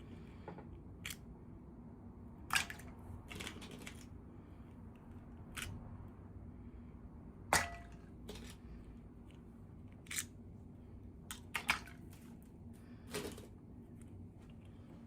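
Irregular sharp clicks and taps of small plastic toy parts and packaging being handled during an unboxing, about ten in all, the loudest about two and a half and seven and a half seconds in, over a low steady hum.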